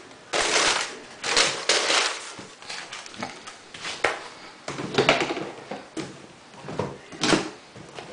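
Handling noise: irregular bursts of rustling and light knocks, about a dozen in all, as sneakers and their box are moved about close to the microphone.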